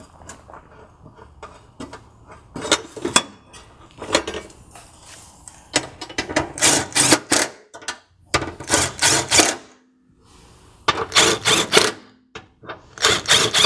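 Cordless impact tool hammering in four short bursts, driving home the bolts of the underbody brace bar, after a few seconds of faint clicking as the bolts are started by hand.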